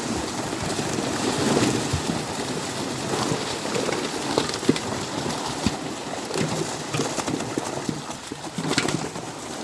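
Water splashing and spattering, with many scattered light knocks and clicks.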